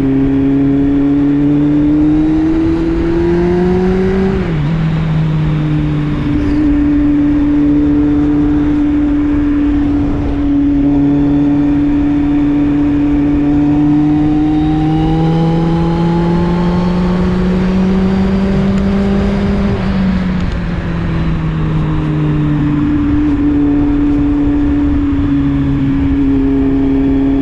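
Kawasaki Z750's inline-four engine through an Arrow slip-on exhaust, running under way. Its pitch climbs slowly and drops sharply twice, about four seconds in and again around twenty seconds in, as at upshifts, over a low rumble of wind and road.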